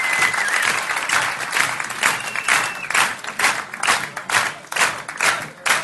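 Concert audience applauding: dense applause that turns, about two seconds in, into rhythmic clapping in unison, about two claps a second, the way an audience calls for an encore.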